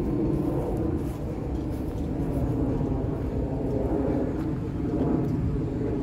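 Road traffic: a steady low rumble of engines and tyres that swells slightly about four seconds in.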